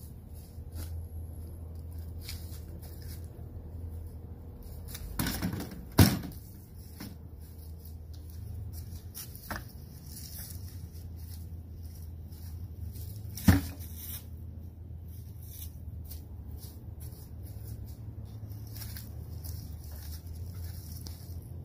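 Handling noises from setting a wooden board on a rusty metal barrel and moving a plastic utility cart: light clattering with two sharp knocks, the louder about six seconds in and another about thirteen seconds in, over a steady low rumble.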